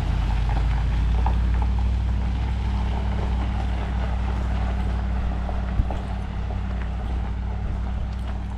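Truck engines rumbling steadily as the trucks pull away, the sound fading a little as they go. One sharp click about six seconds in.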